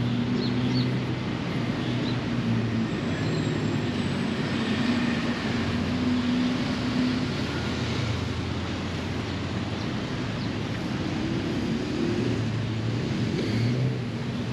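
Steady road traffic noise: a continuous hiss of passing vehicles with a low engine hum. An engine tone rises and swells late on.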